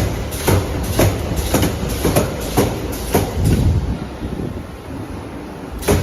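Gantry wire mesh welding machine working, its welding heads knocking down in a steady rhythm about twice a second, with a short lull about two-thirds through before the knocking starts again.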